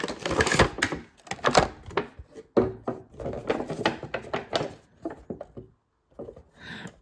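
Action-figure packaging being handled and opened: irregular knocks, clicks and rustles, with a brief lull near the end.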